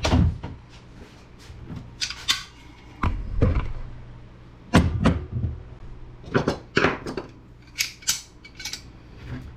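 Irregular metallic clinks and knocks of tools and steel parts being handled while a network appliance is dismantled, about a dozen sharp hits spread unevenly, over a steady low hum.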